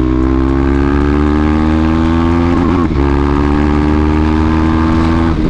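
KTM Duke 390's single-cylinder engine running loud through an aftermarket Akrapovic full-system exhaust under hard acceleration. The exhaust note climbs slowly, dips briefly about three seconds in, then climbs again.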